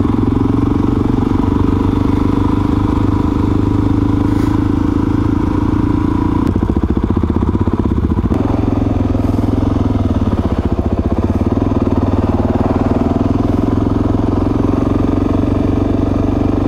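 Suzuki DRZ400S's single-cylinder four-stroke engine running steadily under the rider, its note shifting briefly around the middle.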